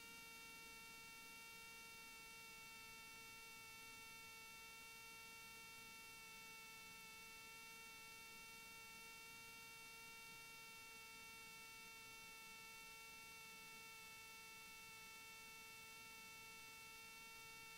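Near silence: only a faint, steady electrical hum with a thin high whine, unchanging throughout.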